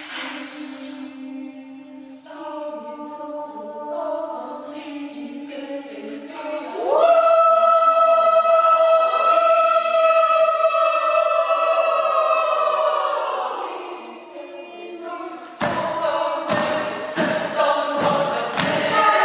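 Youth choir singing a cappella: soft held chords broken by short hissing sounds, then the voices sweep upward about seven seconds in into a loud sustained chord that sags in pitch and fades. Near the end a run of sharp thuds sounds over the singing.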